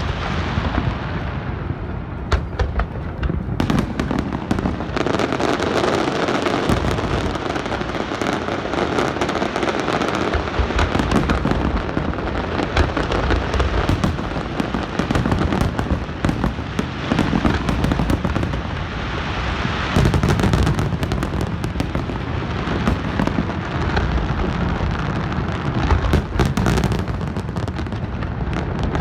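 Fireworks display in full barrage: aerial shells bursting one after another in dense, overlapping booms, pops and crackle, with no letup.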